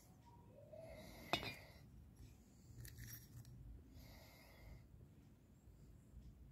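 Faint handling of a new moped piston and its thin steel piston ring: one sharp metallic click about a second and a half in, then light scraping, otherwise near silence.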